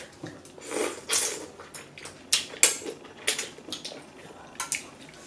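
Close-up eating sounds: udon noodles being slurped and chewed, in a string of short, irregular slurps, with light clicks of chopsticks on bowls.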